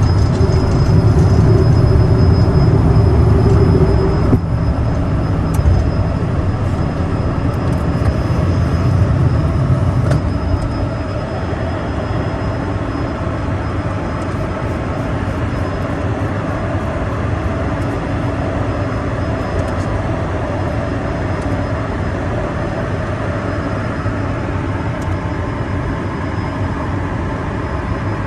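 Cessna Citation M2's twin jet engines and airframe noise heard inside the cabin. A heavy low rumble dominates the first ten seconds, then the sound settles to a steadier, quieter hum.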